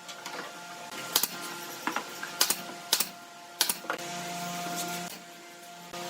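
A handful of sharp knocks, about five spread irregularly over a few seconds, over a steady background of held tones.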